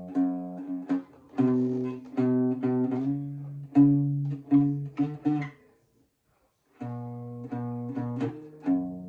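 Guitar playing a short riff of single plucked notes, repeating notes, with a break of about a second near the middle before the riff starts again.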